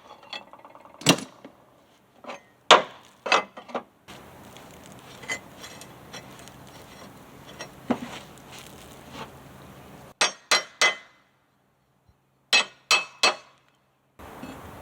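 Steel parts being handled on a workbench: scattered sharp metal clinks and knocks, including three quick clinks about ten seconds in and three more near the end, as a bolt is set into a tapped steel plate.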